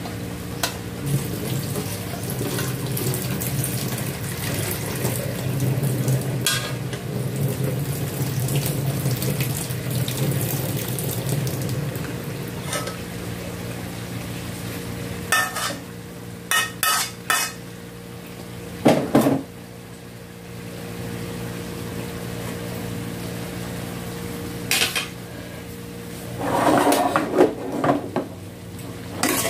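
Stainless steel cooking pot simmering on a gas stove, a steady low bubbling and hum, with scattered sharp metal clinks of pot and ladle. Near the end the pot is taken by its handles and clatters as it is shifted.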